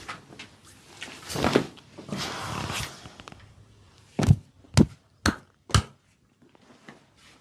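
Massage sounds: two brushing rubs against skin or cloth, then four sharp hits about half a second apart, as from percussive massage strokes.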